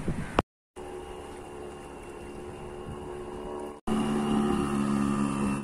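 Motorboat engine running steadily, a low hum with several even tones above it. The sound breaks off twice, and after the second break, about four seconds in, it is louder.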